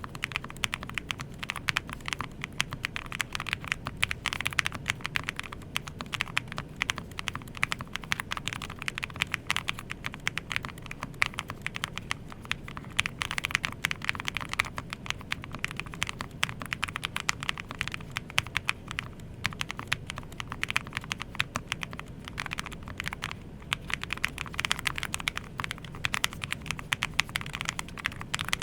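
Steady fast typing on an IQUNIX MQ80 low-profile mechanical keyboard: a dense, continuous run of key clicks and strokes, with a couple of brief lulls.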